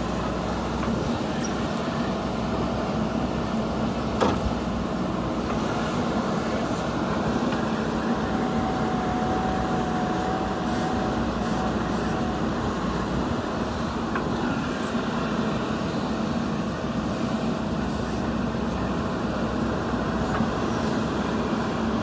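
JCB 3DX Super backhoe loader's diesel engine running steadily under load while its backhoe arm digs, with a single sharp knock about four seconds in.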